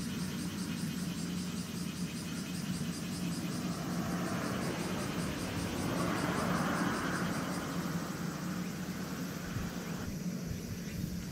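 Hayabusa-class missile boat Umitaka under way at speed, its gas turbines giving a steady low drone. The rush of its wake and water-jet outflow swells in the middle as it passes closest, then fades.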